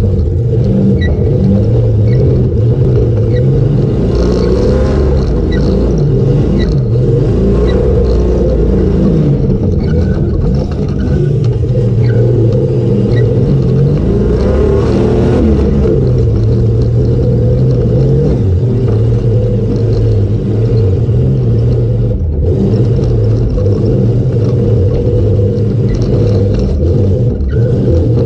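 A safari race car's engine running hard for the whole stretch, its revs climbing and dropping again and again as it accelerates and shifts gear.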